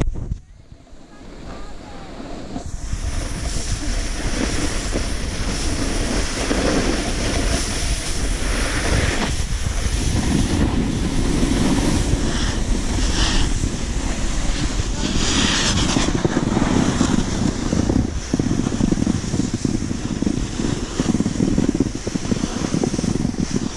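Wind buffeting a GoPro's microphone while riding down a ski run, with the rush and scrape of edges sliding over packed snow and a few sharper swishes from turns. The noise starts quietly and builds within the first few seconds.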